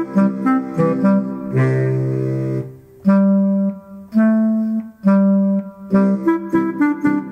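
A Bavarian Ländler played on an accordion fitted with a Limex MIDI system, voiced as a deep clarinet over a helicon-bass and guitar accompaniment. A run of quick notes gives way to a long held chord and three long held notes, then quick notes again near the end.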